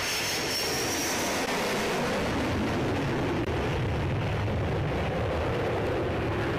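Sukhoi Su-30MKI fighter's twin turbofan engines running at high power as it climbs away: a loud, steady, deep jet rumble, with a thin high whine that fades out about a second and a half in.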